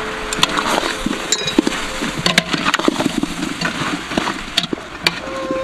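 A metal ladle stirring oxtail pieces in a large aluminium stockpot, with repeated irregular clinks and scrapes against the pot, over a steady hiss.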